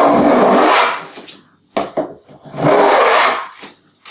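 Shoulder plane cutting a shallow rebate along the edge of a board for a shiplap joint: two long strokes, each about a second, the iron shaving the wood.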